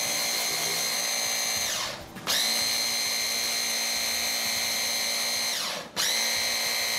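Electric hand-blender motor on a chopper bowl running with a steady high whine as it purees cooked chickpeas into hummus. It is pulsed: the motor winds down and restarts at once about two seconds in and again about six seconds in.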